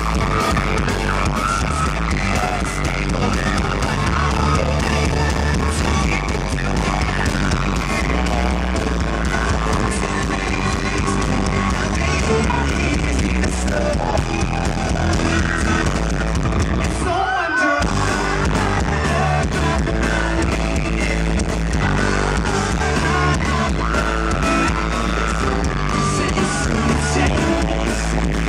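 Live rock band playing a song with a lead singer, electric guitar, bass and drums. The bass and drums cut out briefly about two-thirds of the way through, then the band comes back in.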